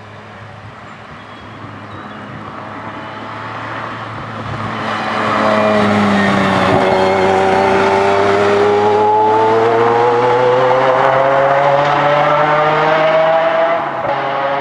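A supercar engine approaching and accelerating hard. Its revs climb steadily through one long gear, and it shifts up near the end.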